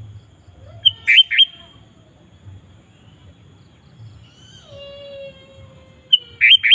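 Sooty-headed bulbul (kutilang) calling: two loud, sharp phrases of three quick bright notes, about a second in and again near the end, with softer whistled notes between them.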